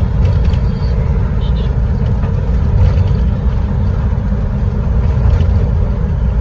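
Busy city traffic ambience heard from a bus: a steady low engine and road rumble with the hiss of passing traffic.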